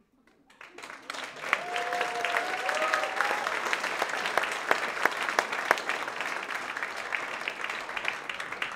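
Audience applauding: dense clapping starts about half a second in and carries on steadily, with a brief pitched call from someone in the crowd about two seconds in.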